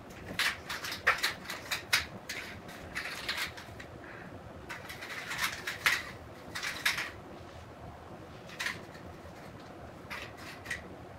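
A kitten scampering and batting at paper party-horn scraps on a hardwood floor: a string of short scratchy rustles and taps. They come thick during the first seven seconds, loudest about a second in and around six seconds, then a few more near the end.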